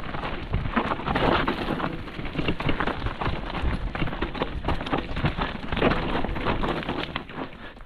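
Mountain bike ridden fast over a rough dirt trail: the tyres crunch over the ground amid a dense run of knocks and rattles from the bike, which grow quieter near the end.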